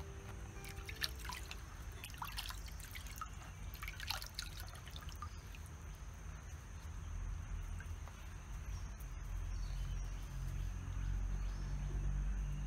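Water splashing and dripping in a clay bowl as hands dip a banana blossom and lift it out, with a run of small splashes over the first few seconds. A low rumble grows louder near the end.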